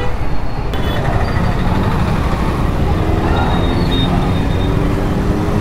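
City road traffic heard from a motorcycle: a steady low rumble of engines and road noise, with motorbikes and scooters running close by.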